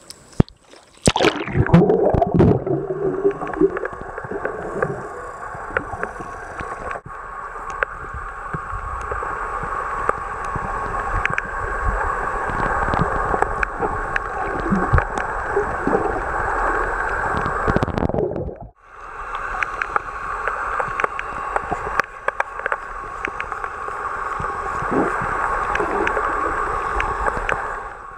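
Sound picked up by a waterproof compact camera held underwater in shallow beach water: a splash and gurgle about a second in as it goes under, then a steady muffled water rush with many scattered clicks. The sound drops out briefly about two-thirds of the way through, then the rush returns.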